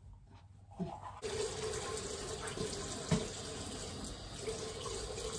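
Bathroom sink tap turned on about a second in and running steadily into the basin, with a brief knock about three seconds in.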